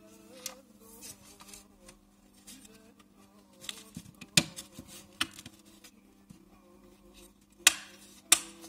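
Clicks and taps of a Serel cistern flush plate and its round button mechanism being handled and pressed into place, with sharp clicks about halfway through and twice near the end, over a faint steady hum.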